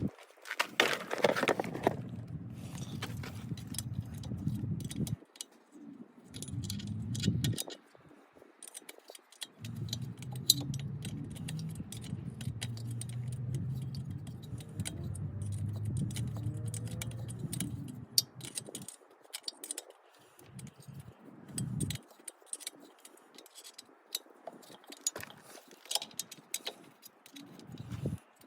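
Metal hand tools and small steel bolts clicking and clinking while the bolts holding an ATV's intake boot and reed block are worked loose. A low steady hum is heard in two long stretches.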